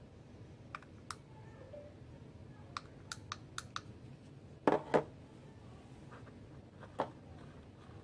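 Small plastic clicks from handling and pressing the buttons of a handheld remote control for switchable smart-glass film, which switches the glass from clear to frosted. About seven light clicks come first, then a louder double knock about halfway through and one more click near the end.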